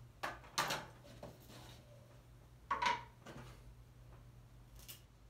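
A few scattered knocks and clatters of kitchen utensils and bowls being handled on a table, one near the middle with a short ring, over a steady low hum.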